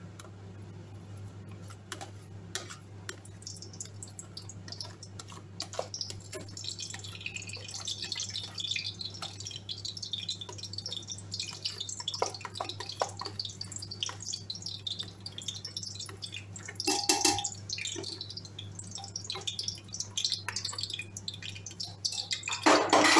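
Palm oil dripping and being scraped off a metal spoon and out of a plastic bowl into a hot stainless steel pot, where it starts to crackle and sizzle as it heats. Small clicks of the spoon come first, the crackling builds from about a quarter of the way in, and a louder clatter of metal comes near the end, over a steady low hum.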